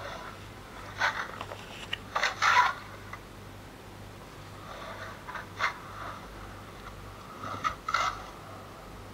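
Skateboard scraping on the concrete walls of an empty pool: several short scrapes of wheels and trucks on concrete as the board carves, spaced a second or more apart.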